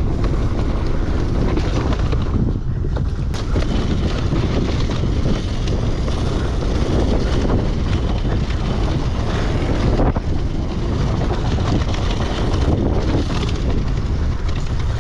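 Enduro dirt bike engine running while being ridden along a rough dirt trail, mixed with steady wind rumble on the microphone.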